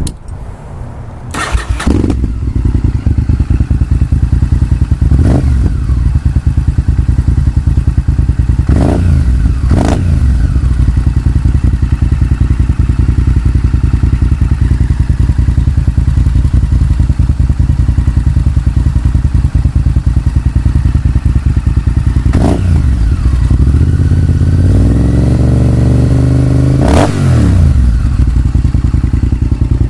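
Honda VTR1000F Super Hawk's V-twin running through Danmoto JISU slip-on mufflers, very loud and very deep. It idles lumpily between short sharp throttle blips, with a longer rev building up near the end. The engine is cold and, by the owner's account, in need of re-jetting.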